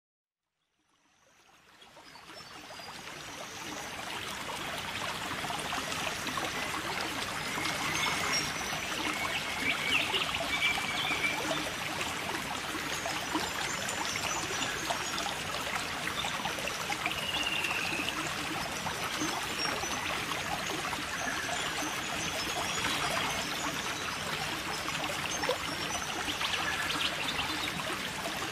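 Steady trickling, bubbling water with fine crackling. It fades in from silence during the first few seconds.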